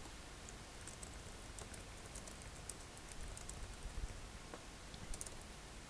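Faint, scattered light clicks and ticks, coming in small bunches over a quiet room background.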